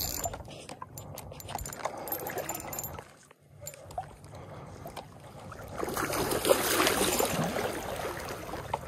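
Shallow stream water splashing and sloshing as a hooked brown trout thrashes at the surface and is grabbed by hand. It gets louder about two-thirds of the way through.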